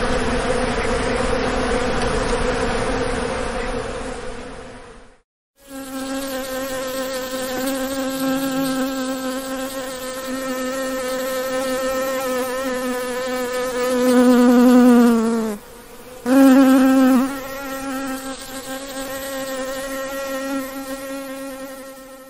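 Bee buzzing, a steady droning hum, in two separate recordings. The first, over a hissy background, fades out about five seconds in. After a short gap a clearer buzz starts, swells loud with a slight drop in pitch midway, breaks off for a moment, surges again and fades near the end.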